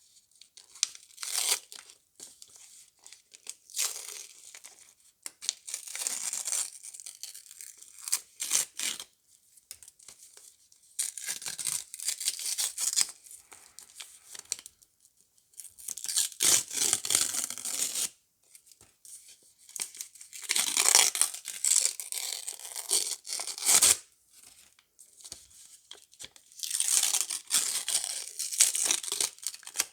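Soap wrappers being torn open and crinkled by hand while bars of soap are unpacked. The sound comes in repeated bursts of a second or a few seconds each, with short quiet gaps between.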